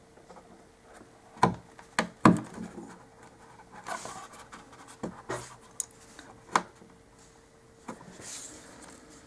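Sharp clicks and taps, several spaced over a few seconds, as brass grommets are pushed through tape wire into a foam-core wall with a small hand tool. Scratchy rubbing comes between the clicks.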